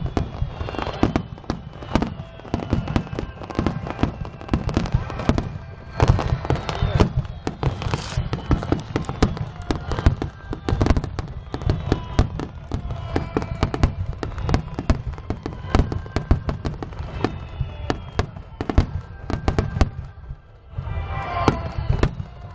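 Aerial fireworks display: a dense barrage of shells bursting in rapid booms and crackles over a low rumble, with several whistles gliding down in pitch. The bursts ease off briefly near the end, then pick up again.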